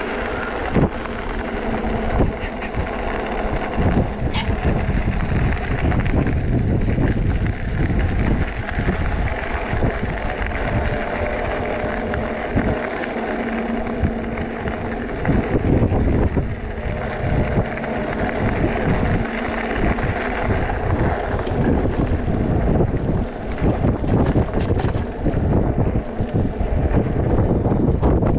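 Wind buffeting the microphone of a rider on a moving e-bike, a steady fluttering rush, with a faint steady whine at times.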